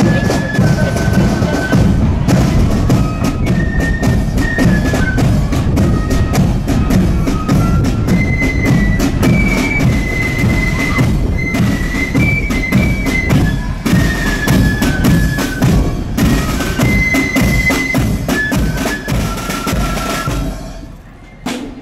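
Marching flute band playing a tune in unison over rattling side drums and a bass drum. The music stops near the end.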